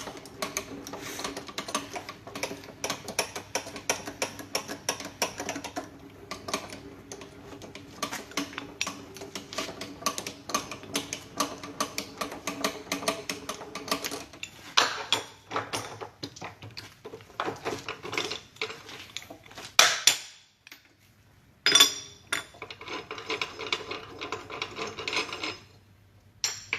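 Metal tooling and parts clinking and rattling over a steady machine hum. The sound breaks off for about a second past the twenty-second mark, then starts again.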